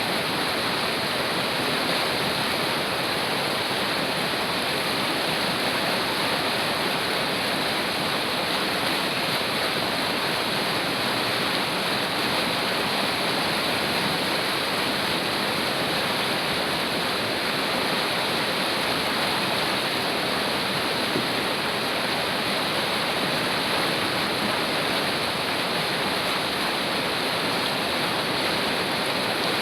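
Steady rushing of a fast-flowing river or mountain stream, water running over rocks without a break.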